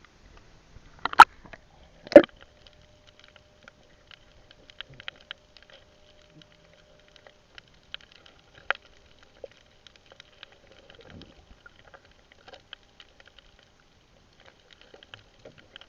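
Two sharp knocks about a second apart, followed by faint scattered clicking and crackling.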